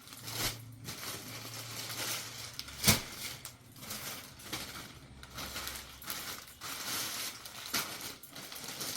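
Packaging rustling and crinkling as a gift package is handled and unwrapped, in irregular bursts, with one sharp click or knock about three seconds in.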